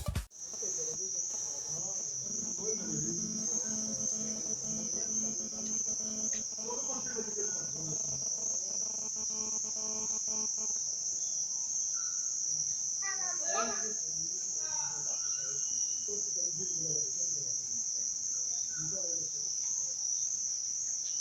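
Insects trilling in one steady, unbroken high-pitched drone, with faint voices of people talking underneath.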